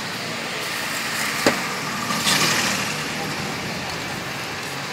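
Steady street traffic noise, with one sharp clack about one and a half seconds in and a short hiss just after.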